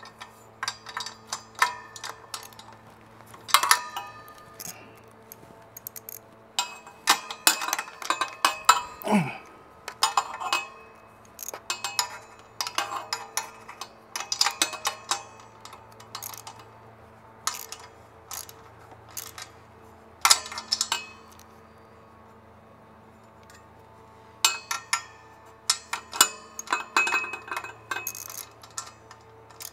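Hand tools clicking and clinking on metal as motorcycle exhaust header bolts are tightened: irregular clusters of sharp clicks and metallic taps, separated by short pauses.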